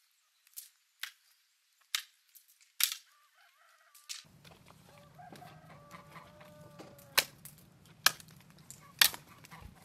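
A garden hoe chopping into the ground in sharp strikes about once a second, then hens clucking, with three more loud sharp knocks about a second apart near the end.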